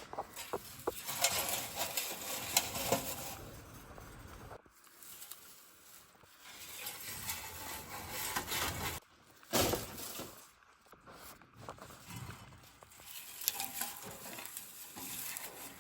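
Rustling and light clatter of hay being handed out into rabbit cages, with a sharp knock about nine and a half seconds in.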